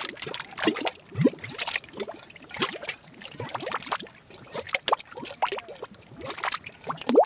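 Mud pot bubbling: carbon dioxide gas rising through thick grey mud and bursting in irregular wet plops and gurgles, several a second, many with a quick rising pitch. The loudest plop comes near the end.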